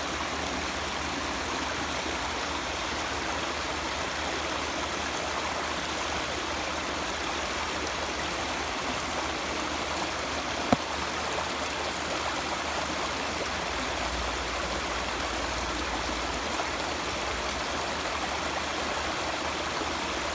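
Clear mountain stream running: a steady rush of flowing water. A single sharp click about halfway through.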